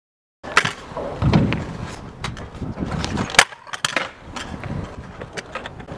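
Stunt scooter on concrete skatepark ramps: wheels rolling with a low rumble about a second in, and repeated sharp clacks and knocks of the deck and wheels striking the concrete.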